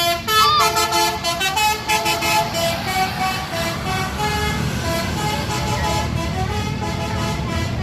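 A bus's telolet 'basuri' horn playing a quick tune of short notes that step up and down in pitch, one bending note near the start. The bus engine runs underneath.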